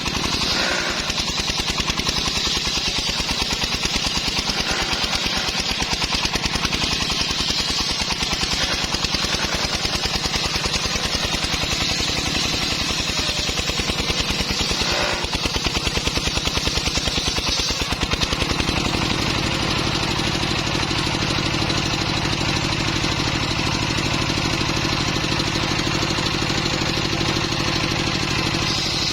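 Engine of a homemade circular sawmill running steadily, with a fast regular pulse. About two-thirds of the way through the sound changes to a steadier, deeper engine tone.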